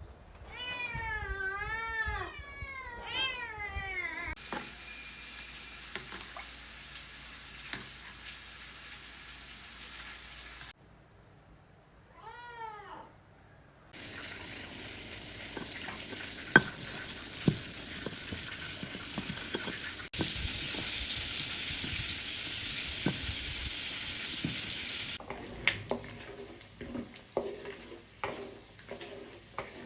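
A cat meows several times, then food sizzles in a hot pan, with clicks and scrapes of stirring. The sizzle cuts out briefly while the cat meows once more, and near the end the frying gives way to clinks and scrapes in the pan.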